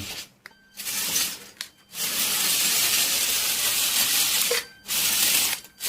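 Lego remote-control tank running on its plastic tank treads: the electric motor whirs and the treads rattle in three spells of driving, the longest about two and a half seconds, with brief stops between.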